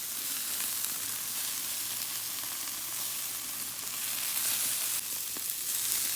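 Beef burger patties sizzling on a hot charcoal grill: a steady hiss.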